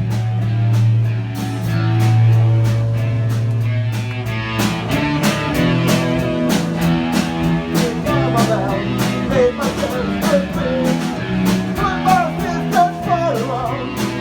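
Rock band playing: a single low guitar note held for the first few seconds, then drums and guitar chords come in, with a sliding, bending melody line over them from about the middle.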